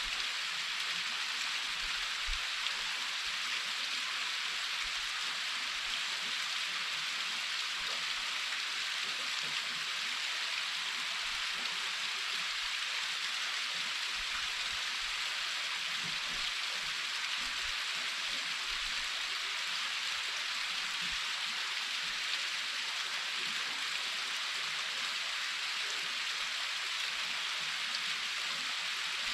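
Waterfall pouring steadily, a constant rushing hiss of falling water, heard from near the lip of the falls.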